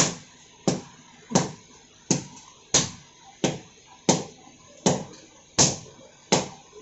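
Two sledgehammers striking glowing steel on an anvil in alternating blows while a knife is hand-forged: about ten evenly spaced strikes, roughly 0.7 s apart, each ringing briefly.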